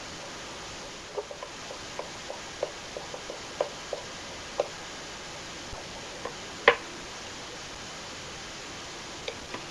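Irregular light clicks and taps from hand work on a valve radio, such as screws and knobs being fitted, with one sharper knock about seven seconds in, over a steady hiss.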